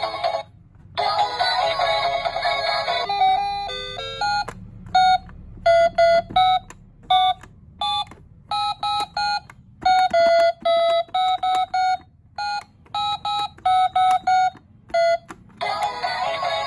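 Electronic musical toy telephone: a few seconds of its built-in synthesized song, then a long run of short, identical electronic beeps at one pitch, irregularly spaced and of varying length, as its fruit buttons are pressed. The song starts up again near the end.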